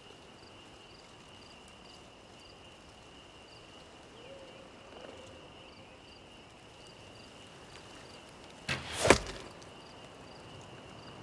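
Outdoor ambience: a thin steady high buzz with a faint chirp repeating about twice a second. About nine seconds in, a sudden swoosh rises into a sharp hit, the loudest sound here.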